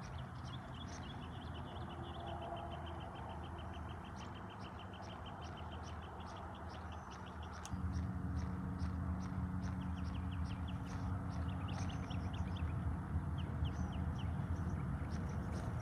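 Small birds chirping in quick repeated series throughout, over a steady low rumble that gets louder about eight seconds in.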